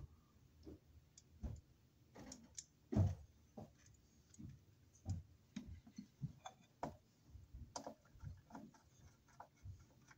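Screwdriver and wires clicking and tapping against a metal electrical box as a green ground tail is screwed to it to bond the ground. The small clicks come irregularly, with one louder knock about three seconds in.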